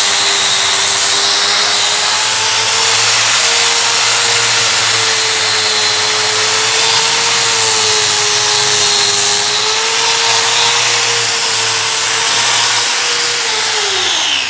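Electric angle grinder running steadily with a 200-grit dry resin diamond polishing pad on marble, its motor whine wavering slightly in pitch over a rushing grinding noise. Near the end it is switched off and the whine falls away as the motor spins down.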